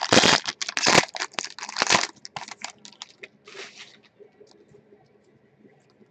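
A foil trading-card pack wrapper torn open and crinkled by hand: loud crackling tears over the first two seconds, then lighter crinkling that dies away about four seconds in.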